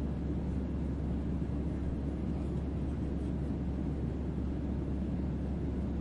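Airliner passenger cabin noise: a steady, even rumble of engines and airflow, with most of the sound low down.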